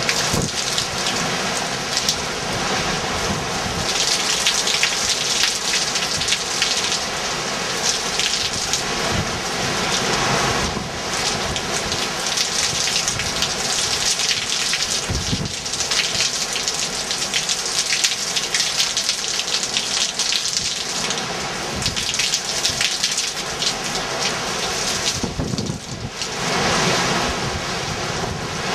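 Heavy hurricane rain and wind, a loud steady rushing that swells and eases in gusts, with one low thud about halfway through.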